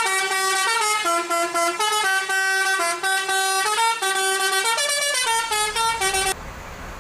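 Telolet basuri musical bus horn playing a long, quick melody of stepping tones, cutting off suddenly about six seconds in and leaving a quieter steady rumble.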